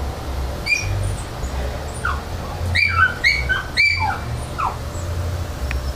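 A series of short, high-pitched chirping animal calls, some rising and some falling, bunched about a third to two-thirds of the way in, over a steady low rumble.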